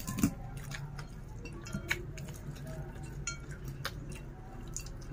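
Fingers scooping and pressing food on a ceramic plate while eating by hand: scattered soft clicks and small wet scrapes against the plate, over a low steady hum.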